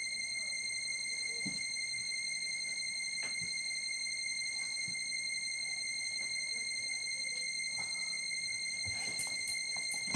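A steady, piercing high-pitched electronic tone held unbroken, with a stack of higher overtones. It cuts off right at the end, with a few faint clicks underneath.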